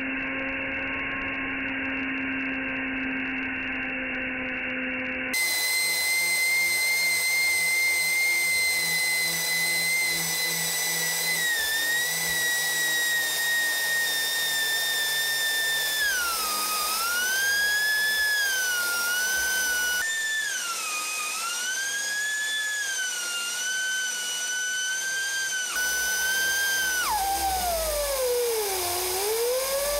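3D-printed gas-turbine blender running at high speed with a high-pitched whine. The pitch sags again and again as the metal blades chop up a cucumber, then drops steeply near the end and climbs back. For the first five seconds a lower, steady hum plays instead, giving way abruptly to the louder whine.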